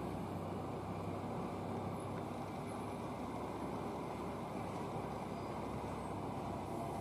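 Diesel engine of a MAN heavy tractor unit running steadily under load as it slowly hauls a low-loader carrying a heavy drilling rig, a constant low rumble with a faint steady hum.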